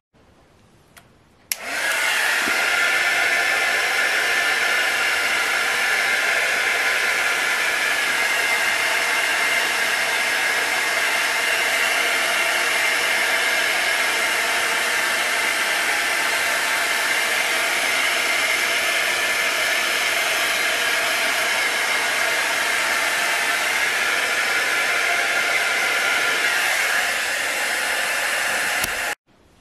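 Handheld heat tool blowing hot air steadily over freshly painted acrylic to dry it. It switches on about a second and a half in and cuts off suddenly near the end.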